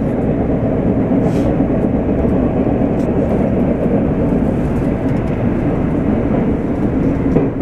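Subway train running, heard from inside the car near the front cab: a steady rumble of wheels and motors.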